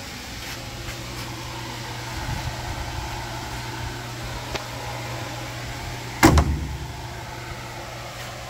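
Replica car door swung on its newly fitted 150-pound gas shocks and shut, with one loud thump about six seconds in. A steady low hum runs underneath, and there is a faint click a little before the thump.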